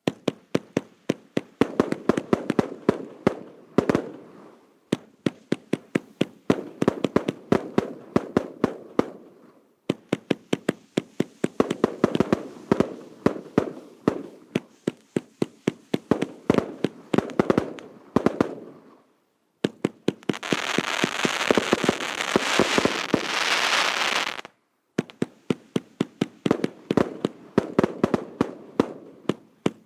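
A 100-shot 1.2-inch professional fireworks cake firing: rapid launch thumps several a second, with crackle behind them, in runs broken by short pauses. About two-thirds of the way through, the shots give way to a dense hissing crackle lasting about four seconds, then the rapid launches resume.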